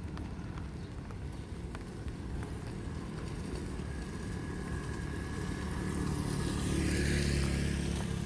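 A motor vehicle passing on a wet road in the rain, its engine rumble and tyre hiss growing louder to a peak about seven seconds in.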